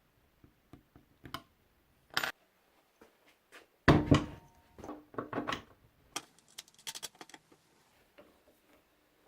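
Handling noises in a workshop: a scatter of light clicks and knocks, with a louder clatter of hard objects, some briefly ringing, about four seconds in.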